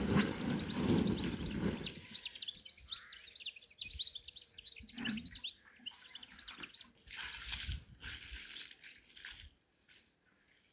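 Small birds chirping: a dense run of short, high chirps that thins out after about seven seconds. A broad rustling noise sits under the first two seconds.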